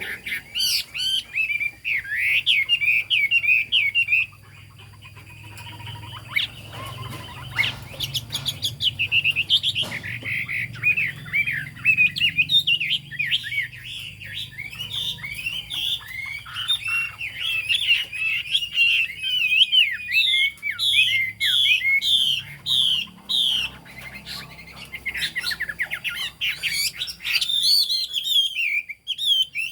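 Chinese hwamei singing a long, varied song of rapid whistled phrases, with a short pause about four seconds in and a run of evenly repeated notes around twenty seconds in.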